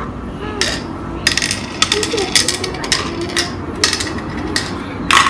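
Beads clicking as they are dropped one after another into the holes of a congkak board, a quick run of sharp clicks with short pauses.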